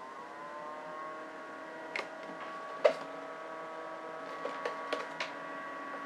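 Compact dehumidifier's small fan spinning up, its whir rising in pitch over the first second and then running steady. A few sharp clicks come through, the loudest about three seconds in.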